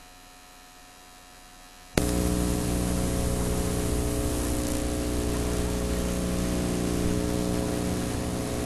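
Steady electrical mains hum with hiss, a stack of steady buzzing tones, cutting in abruptly about two seconds in after near silence: noise on the recording before the programme's sound starts.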